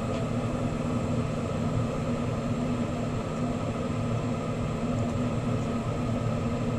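Steady rushing hiss of a Bethlehem Bravo glassworking bench torch flame, with a low steady hum underneath.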